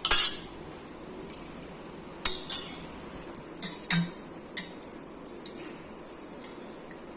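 Metal utensil clinking and knocking against a metal pressure-cooker pot as porridge is ladled out into another vessel: a few sharp strikes in the first four seconds or so, then lighter taps.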